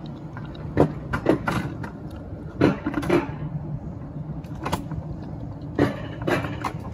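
Alpine coaster sled rolling along its steel rail track: a steady low rumble broken by several sharp clunks and knocks.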